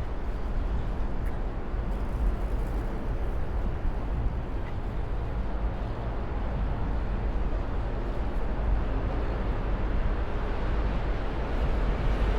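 Steady road noise while riding: wind rushing over the camera's microphone and tyre noise, an even low rumble with no breaks.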